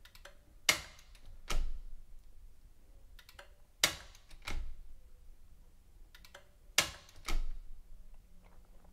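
A 30 mA type AC RCD in a consumer unit tripping under trip-time testing and being switched back on, three times about three seconds apart: each sharp snap is followed within a second by a duller click as the lever is pushed back up.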